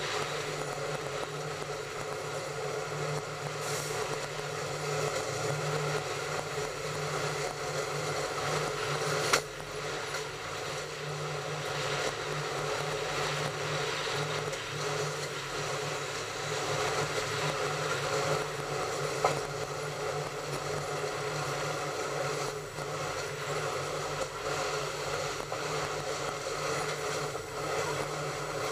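Train running along the track with a steady mechanical hum and rumble. There are two sharp clicks, one about nine seconds in and one about nineteen seconds in.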